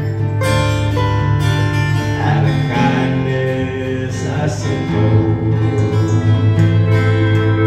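Live country band playing, with acoustic and electric guitars plucked and strummed over a steady bass.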